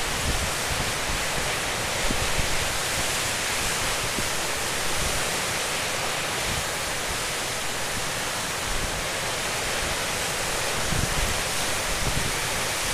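Strong nor'easter wind, gusting to 30–40 knots, with storm waves breaking across the bay: a steady rushing hiss with an uneven low rumble of gusts underneath.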